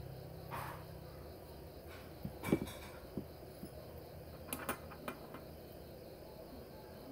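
Small metal parts of a spinning reel's spool and a screwdriver being handled and set down on a silicone work mat: a soft knock about half a second in, a sharper click about two and a half seconds in, and a few light clicks around four and a half to five seconds.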